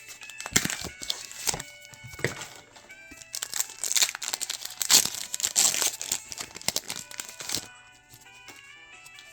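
Foil booster-pack wrapper being torn open and crinkled by hand in a run of sharp crackles that stops just before the end, over light background music.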